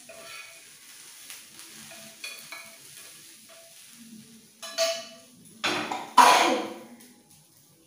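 Food frying and sizzling in a wok while a spatula stirs and scrapes. About five seconds in come three sudden loud bursts of noise, the last the loudest.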